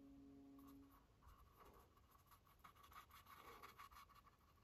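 Faint scratching and dabbing of a small paintbrush's bristles working acrylic paint on a canvas board, in short irregular strokes. A faint steady tone stops about a second in.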